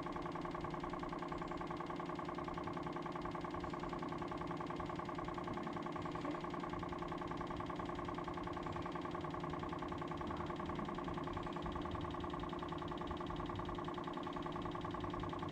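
Electric RO booster pump running steadily with an even motor hum, without cycling on and off, as it pushes water through the RO system to fill the pressure tank.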